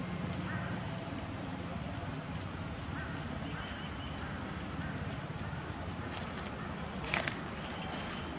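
Outdoor ambience: a steady high buzz with a low rumble beneath it, and a brief sharp crackle about seven seconds in.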